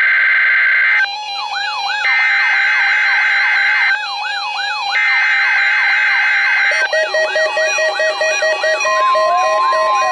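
NOAA Weather Radio emergency alert signal: three harsh buzzing SAME data bursts, with weather radio receivers' electronic siren alarms whooping over them from about a second in and growing busier after the third burst. Near the end the steady 1050 Hz weather radio warning tone begins.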